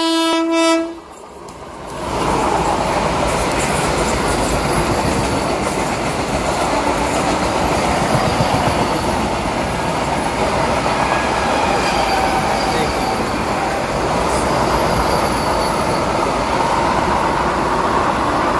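A train horn blast that cuts off about a second in, then a Vande Bharat Express trainset passing at speed on the adjacent track: a steady, loud rush of wheel and air noise.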